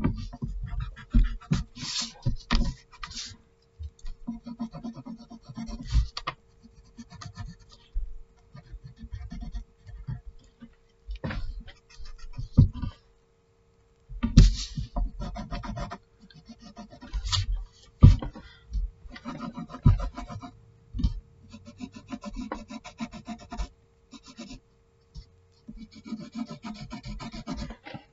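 Wooden pencil scratching across paper in short runs of quick strokes with pauses between, as shading lines are drawn. Now and then a hand rubs and shifts the sheet on the table, with a soft thump.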